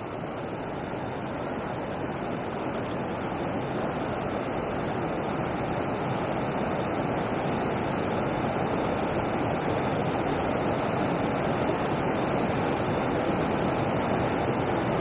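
Steady rushing of water pouring over a river weir, an even roar that swells slightly over the first few seconds.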